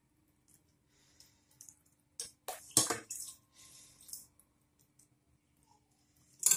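Chicken broth poured from a metal ladle over shredded trid pastry, with soft wet splashing as it soaks in. A few clinks of the metal ladle come through, the sharpest about three seconds in.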